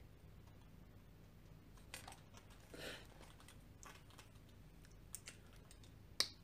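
Near silence: faint room tone with a few soft clicks and a brief rustle from a marker and a coloring book being handled.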